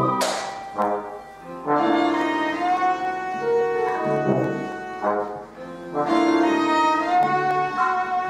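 Instrumental music with sustained brass-like and bowed-string-like notes, the chords changing every second or two. A short noisy burst sounds just after the start.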